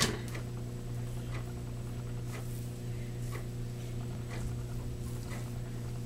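Low, steady electrical hum with faint, scattered soft ticks and rustles of fingers working through hair.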